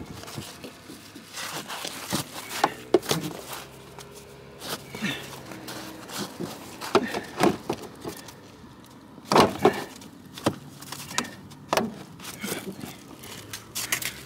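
Hands scraping and scooping crusty, packed snow out from under a car's side sill, making irregular crunches and knocks. The snow has the car high-centered.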